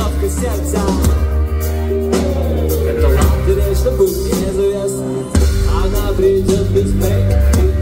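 A rap track plays loud over a concert sound system, with a heavy deep bass line. About three seconds in the bass drops away, and it comes back in suddenly about five and a half seconds in.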